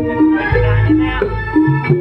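Javanese jaranan ensemble music: a stepping melody of pitched notes over hand-drum strokes from a kendang barrel drum, with a deep sustained boom from about half a second in.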